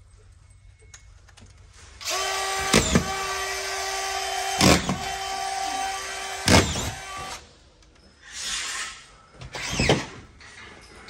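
Cordless drill driving screws through sheetrock into metal studs: the motor runs steadily for about five seconds with three sharp knocks inside it, then two shorter bursts near the end.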